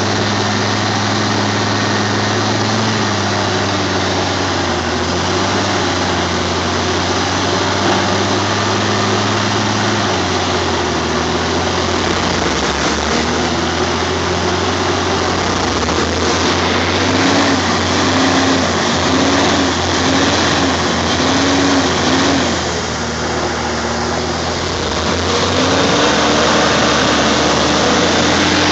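Heavy truck diesel engine running steadily, its pitch shifting partway through and rising and falling in a run of short humps about two-thirds of the way in.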